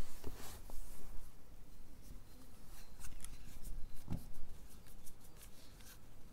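Paper wrapper of a packaged ice cream cone crinkling and rustling as it is handled, in scattered light crackles and clicks, with a soft low thump about four seconds in.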